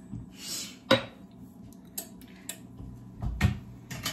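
Light kitchen clatter of dishes being handled: a sharp knock about a second in and a couple of dull thuds near the end.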